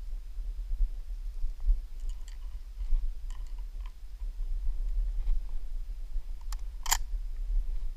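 Scattered small clicks and rustles of handling over a steady low rumble, then two sharper clicks about six and a half and seven seconds in, the second the loudest.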